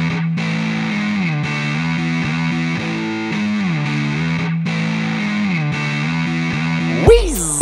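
Distorted electric guitar playing a slow melody of held, bending notes in a song's instrumental break. Near the end a loud hit lands and a thumping beat starts.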